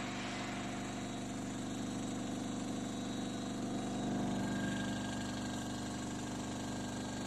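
Automatic chicken breast cube cutting machine running, a steady mechanical hum that swells slightly about four seconds in.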